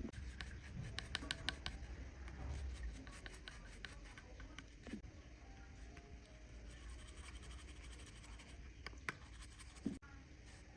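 Light scratching and small clicks of hand tools working on a watch, with a quick run of clicks about a second in and sharp single clicks near the end.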